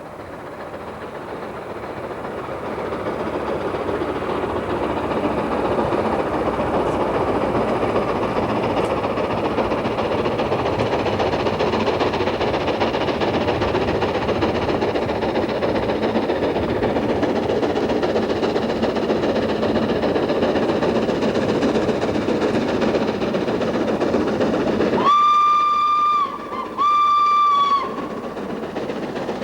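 LNER K4 three-cylinder mogul steam locomotive working a train, its sound building over the first few seconds and then running steadily, with two short blasts on the whistle near the end.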